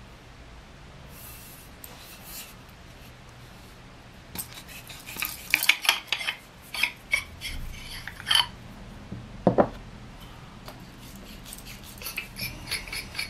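Aluminium tube sections of a screw-together survival stick being twisted and handled: threads scraping and metal parts clinking in irregular short taps, starting about four seconds in, with one louder knock about two-thirds of the way through.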